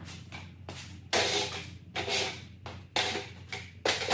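A large sheet-metal car roof panel flexing and buckling with a tinny, cymbal-like crash about four times as it is carried and lifted into place, each crash ringing briefly.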